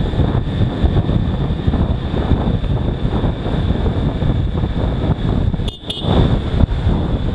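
Riding a motorcycle in traffic: a steady, loud rush of wind on the bike camera's microphone over the vehicle noise, with a faint steady high whine. The sound briefly dips and comes back near the end.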